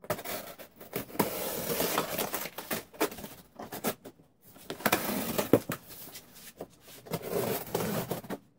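A knife slicing through the tape and cardboard of a large shipping box, then the cardboard flaps scraping and rustling as they are pulled open. It comes in three stretches of scraping and tearing, with short pauses and a few sharp clicks.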